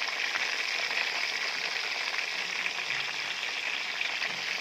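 Masala-marinated chicken pieces deep-frying in hot oil, a steady crackling sizzle.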